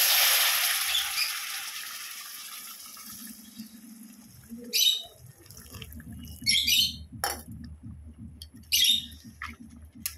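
Hot water poured into a hot kadai of fried potatoes and spiced oil: a loud sizzle at first, fading over the next few seconds as the water keeps pouring in and the curry starts to bubble. A bird chirps a few short times in the second half.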